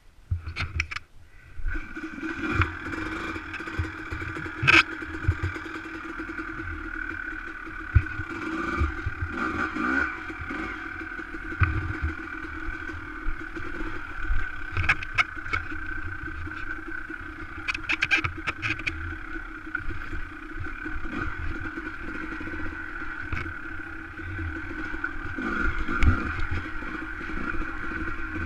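Dirt bike engine running at low, fairly steady revs while crawling up a rocky trail, coming in about two seconds in, with scattered knocks and clatter from the tyres and chassis on loose rock.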